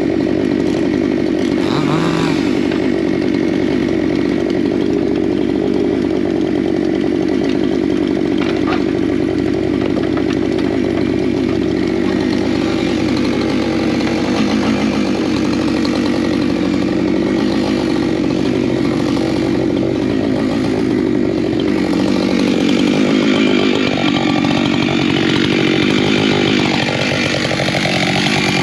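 Chainsaws cutting firewood logs, the engines running steadily at high speed without a break.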